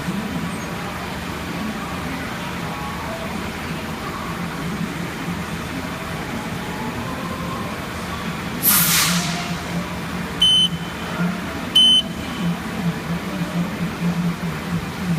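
Haas CNC mill running with a steady machine hum. A short hiss of air comes about 9 seconds in, followed by two short, high electronic beeps about a second and a half apart.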